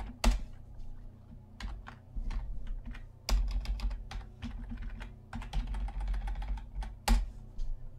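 Typing on a computer keyboard: irregular key clicks with a few louder clacks, over a steady low hum.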